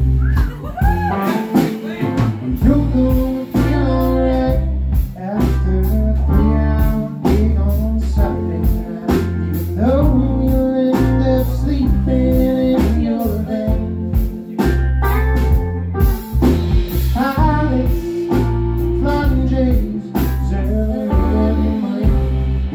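Live band playing a bluesy rock song: electric guitar, bass guitar and drum kit with a steady beat, and a woman singing.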